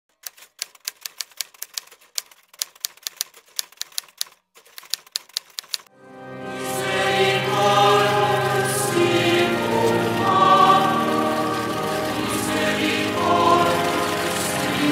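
Strings of sharp, quick clicks with two short pauses, like typing. About six seconds in they stop and a choir fades in singing a slow sacred chant-like piece that runs on.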